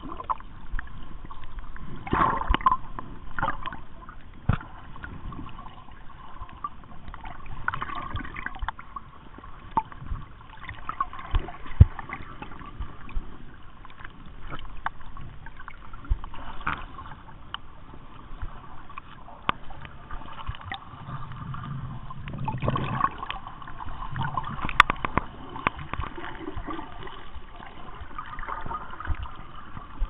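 Sea water sloshing and gurgling, with scattered sharp clicks and crackles and a couple of louder surges.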